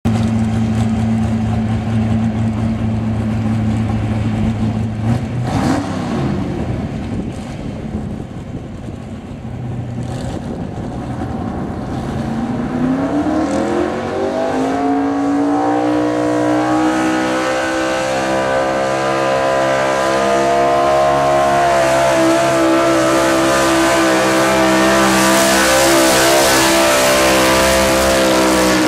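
Dodge pickup truck's engine running steadily at a low idle, then revving up over a few seconds about halfway through and held at high revs under load as it pulls a weight-transfer sled, with a hiss building near the end.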